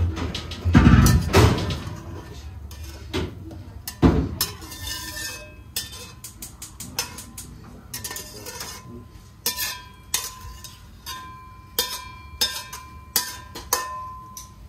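Metal spatula scraping and knocking against a wok while stir-fried cabbage is tipped out into a bowl: a run of knocks and clinks, with heavier thumps about one second and four seconds in and short metallic rings near the end.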